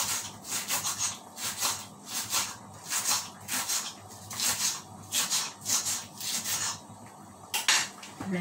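Knife chopping spring onions on a cutting board in a steady rhythm, about three strokes a second. The chopping stops about seven seconds in, followed by a single knock.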